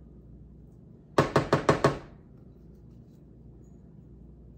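A spatula rapped five times in quick succession against a dish to knock off cornbread batter, sharp knocks with a short ring.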